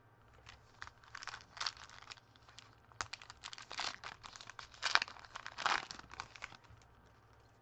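Foil wrapper of a Topps baseball card pack being torn open and crinkled: a run of irregular crackling rustles, loudest about five seconds in, dying away near the end.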